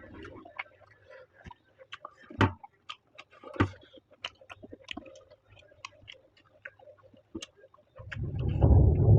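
Close-miked chewing and wet mouth sounds of someone eating, a quick run of small clicks with two louder crunches. Near the end, a loud rumbling noise comes in and keeps going.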